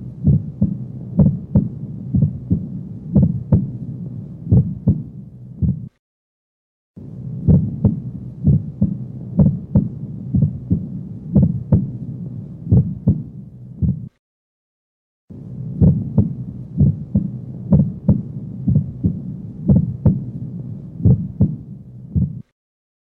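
Heartbeat heard through a stethoscope: regular sharp lub-dub clicks over a low steady hum, with the first heart sound split into two close clicks. Split S1 is normal in many people and is thought to come from mitral valve closure followed by an aortic ejection sound. The recording cuts to silence for about a second three times.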